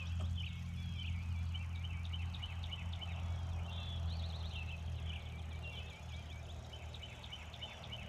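Songbirds singing quick chirping phrases again and again, over a steady low hum.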